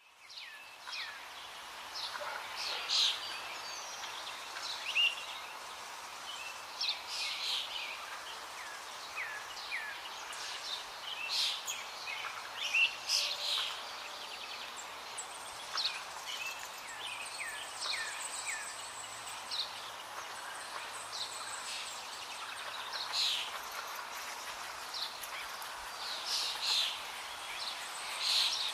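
Many small birds chirping and twittering over a steady outdoor hiss. The calls are short, quick notes, some falling in pitch, scattered irregularly and overlapping.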